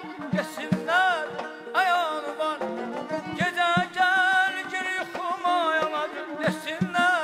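Live Azerbaijani mugham: an ornamented melodic line with quick trills and glides over hand-drumming on a frame drum (qaval) and a barrel drum (naghara).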